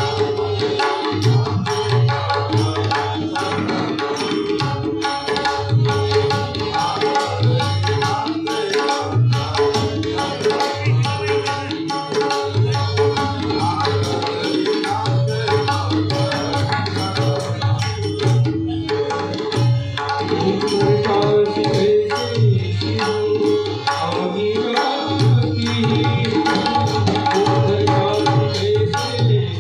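Marathi devotional abhang music: tabla and mridang drumming a steady, dense rhythm under sustained melodic tones.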